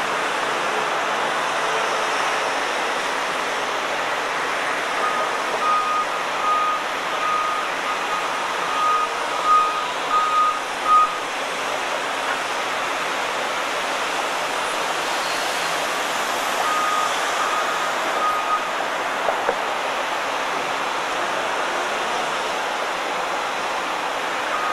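Steady rush of jet engine noise with a ground vehicle's reversing beeper sounding over it: a run of about ten evenly spaced beeps, then a shorter run of three or four a few seconds later.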